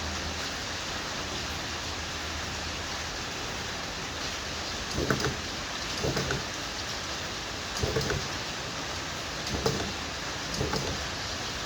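Battery spot welder joining nickel strip to 18650 cells: a series of short welding pulses, each a brief buzzing snap, coming every one to two seconds from about five seconds in, over a steady hiss.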